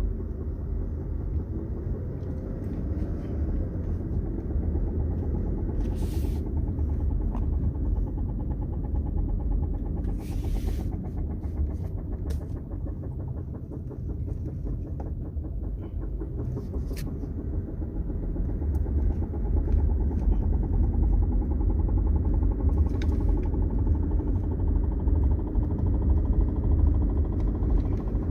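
Dodge Charger running with a heavy, steady low rumble and a repeated thumping/knocking from the driveline, which the owner puts down to loose drive shaft bearings. It grows louder about two-thirds of the way through, with a few sharp clicks along the way.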